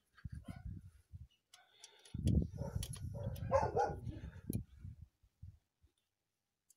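Small clicks, taps and low handling bumps as a gloved hand presses the accelerator-pump nozzle into its seat in an open carburettor. The handling is busiest in the middle and stops near the end.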